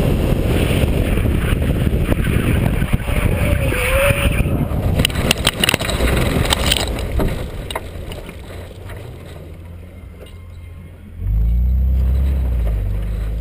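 BMW E36 328i's straight-six engine running, with wind noise on the camera mounted outside the car, as it runs off the track into tall grass. A cluster of sharp clicks and knocks from grass and debris striking the body comes about five seconds in, then the sound dies down as the car slows. Near the end the engine comes in loud and low again.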